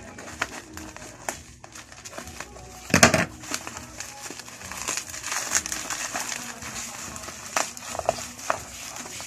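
Bubble wrap crinkling and crackling as a bubble-wrapped package is handled and pulled open by hand, with a louder rustling burst about three seconds in.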